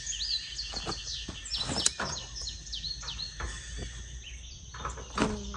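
Birds singing in rapid runs of short sweeping chirps, over a steady high insect drone, with a few faint knocks and clicks about halfway through.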